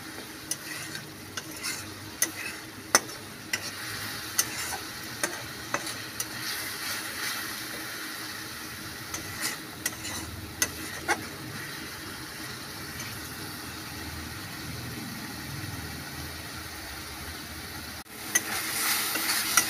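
Onion-and-tomato masala sizzling in a steel kadai as a metal spatula stirs and scrapes it, with sharp clicks of spatula on pan, most frequent in the first dozen seconds. The masala is being fried down (koshano) with a little water. Near the end the sizzle breaks off briefly and comes back louder.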